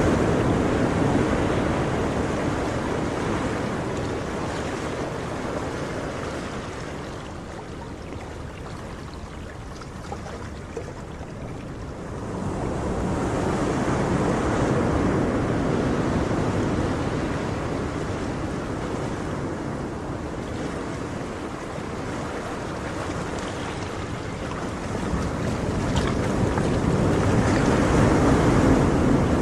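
Ocean surf washing onto a shore in slow surges, each wave swelling and then fading away, three times over.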